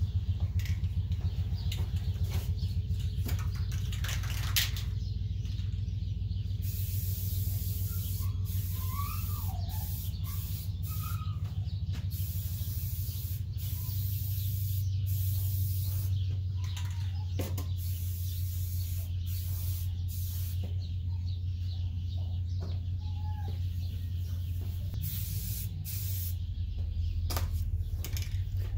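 Aerosol spray can of primer hissing in repeated bursts, on and off every few seconds, starting about six seconds in, over a steady low hum.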